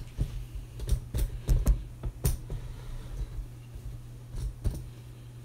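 Handling noise from the camera being moved and repositioned: a run of light clicks and knocks, thickest in the first two and a half seconds, with a few more near the end. A low steady hum runs underneath.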